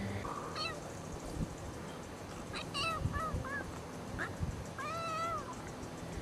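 Kitten mewing while a pit bull puppy wrestles it down: a few short cries, then one longer, drawn-out meow near the end.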